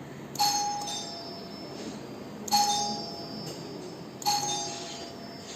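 A bell-like chime dinging three times, about two seconds apart, each strike ringing clearly and dying away.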